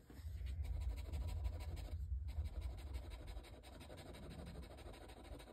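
Faint scratching and rubbing against notebook paper over a low rumble, louder for the first two seconds and then quieter.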